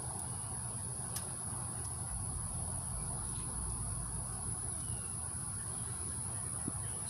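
Insects, crickets by the sound, trilling in one steady high-pitched note over a low background hum.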